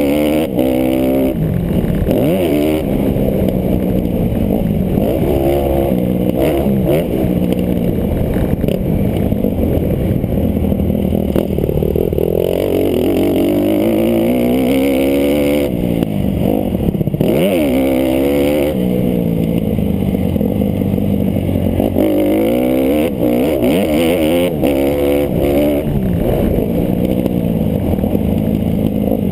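Big-bore-kitted Honda CRF150RB four-stroke single-cylinder motocross engine, ridden hard and revving up and falling back again and again, heard from the rider's helmet.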